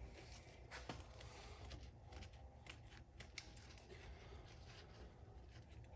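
Near silence with faint scattered clicks and light scraping of parts being handled, over a low steady hum.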